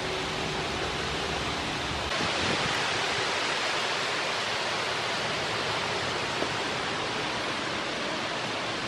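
Steady rushing hiss with no distinct events, strongest in the upper-middle range; its tone shifts slightly about two seconds in.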